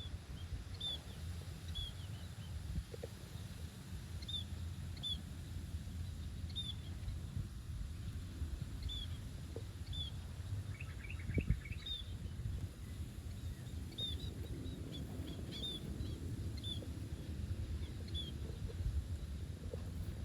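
Small bird chirping: short, high chirps about once a second, with a brief buzzy trill about halfway through. A steady low rumble runs underneath.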